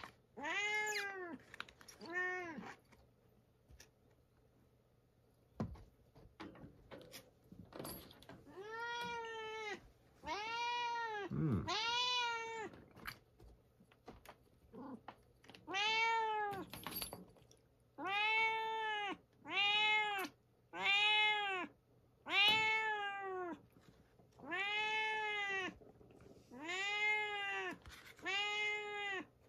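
A domestic cat meowing over and over: about fifteen separate meows of under a second each, each rising and falling in pitch. After two meows there is a quiet stretch of several seconds with a few faint clicks, then the meows resume and come about one a second through the second half.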